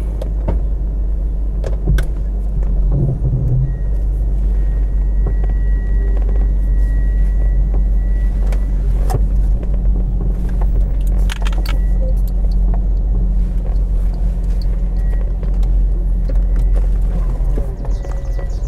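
Jeep Cherokee XJ's 4.0-litre straight-six engine running with a steady low rumble as the Jeep backs out, a few light clicks and rattles over it.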